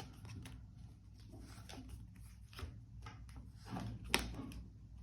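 Quiet room with faint handling sounds: light taps and rustles scattered through, and one sharper click about four seconds in.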